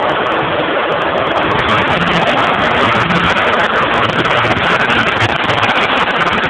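1992 Mitsubishi 3000GT VR4's twin-turbo 3.0 V6 running steadily with a misfire.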